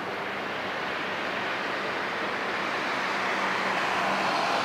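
A large container ship passing close: a steady low hum from its machinery over a broad rushing wash, growing a little louder toward the end.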